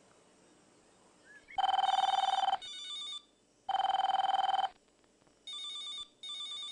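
Nokia mobile phone ringing with a simple electronic ringtone that starts about a second and a half in. It gives two loud one-second bursts of a steady beeping tone, with quieter, shorter phrases of stepping tones between and after them.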